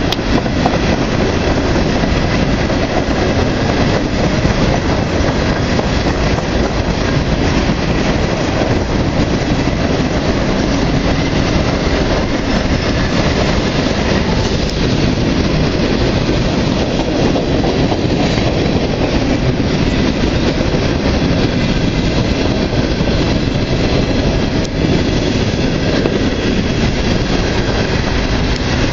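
CSX freight train of covered hopper cars rolling past, a steady, unbroken noise of the cars' wheels running on the rails.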